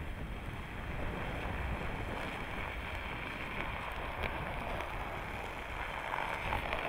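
Jeep Wrangler Unlimited crawling slowly past over packed snow: a low engine rumble with its tyres rolling through the snow, and wind rumbling on the microphone.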